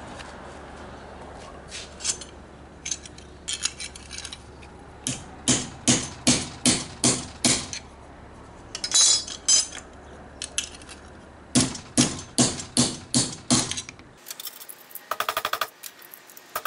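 Hammer blows on a steel mounting plate and carriage bolt set over a socket on a steel block, driving the bolt's square shoulder into the plate. The blows come in two runs of about three sharp strikes a second, with a clink of loose metal plates between them and a fast metallic rattle near the end.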